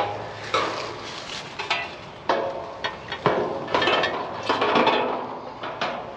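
A run of irregular knocks and clanks, about a dozen over a few seconds, several of them ringing briefly like metal being struck or handled, over a faint steady low hum.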